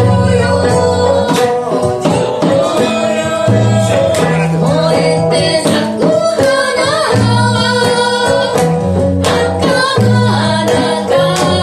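Okinawan/Amami shimauta (island folk song) sung live by a woman, with instrumental accompaniment of sustained bass notes and regular percussion strikes.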